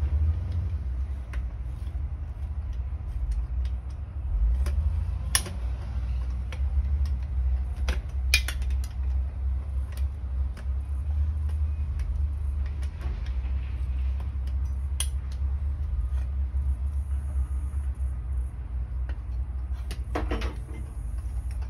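Scattered metallic clicks and clinks of a hex key working the handlebar clamp bolts on a bicycle, with a short cluster of knocks near the end, over a steady low rumble.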